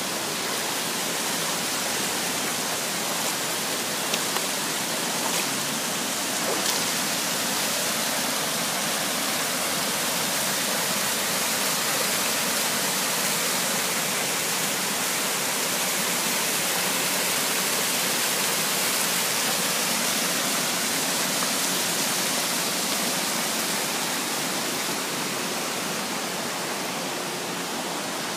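Shallow rocky creek running over stone ledges and small cascades: a steady, even rush of water.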